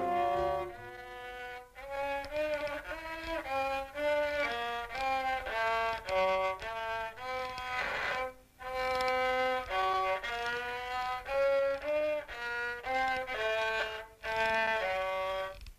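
Solo violin playing a lively melody of short bowed notes with a few longer held ones, breaking off suddenly at the end.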